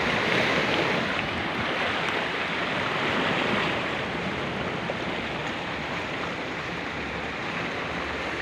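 Sea surf washing steadily against a rocky shore, a continuous rushing wash that eases slightly about halfway through.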